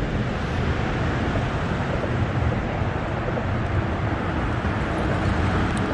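A steady rumbling noise.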